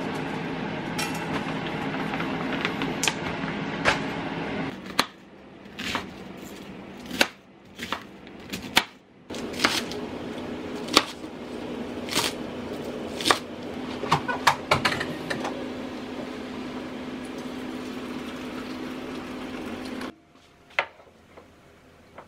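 A microwave oven running with a steady hum while a chef's knife chops cabbage and green onion on a wooden cutting board, in sharp, irregular knocks. The hum cuts off abruptly near the end.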